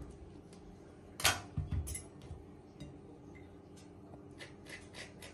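Utensils clinking on a stainless steel tray and a ceramic plate while a mango is cut and its flesh scooped out with a spoon: one sharp clink about a second in, another just after, then a few light ticks near the end.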